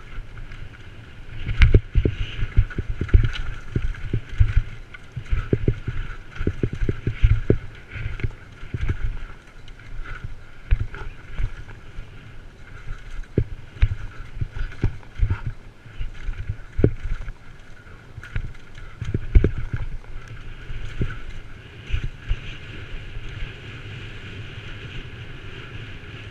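Downhill mountain bike descending a rough, rocky trail at speed: the bike rattles and knocks over rocks and roots, over a constant rumble of tyres and rushing air on the camera. Near the end the knocks thin out into a smoother, steady rumble as the bike rolls onto a flat dirt track.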